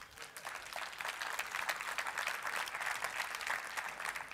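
An audience applauding, building over the first second and then steady.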